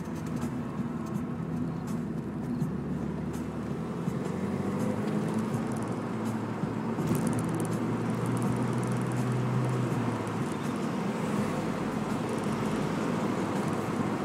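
Renault Megane RS 225's turbocharged four-cylinder engine pulling up a winding climb, with tyre and road noise. The engine note steps to a new pitch a few times as the load and revs change.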